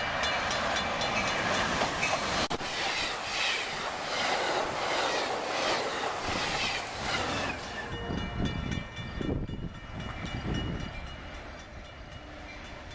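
Amtrak passenger train passing close at speed: a loud rushing rumble with regular clicks of the wheels over rail joints. About eight seconds in it drops quieter, to a low rumble with faint high ringing tones as another train approaches.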